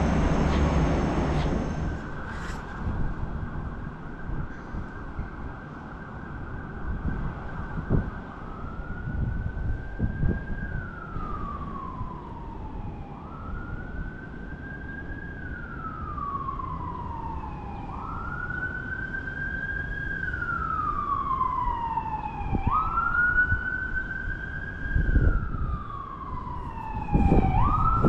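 Emergency vehicle siren: a held steady tone that, about eight seconds in, turns into a slow wail rising and falling every four to five seconds, growing louder toward the end. A low rumble fills the first couple of seconds, with a few thumps along the way.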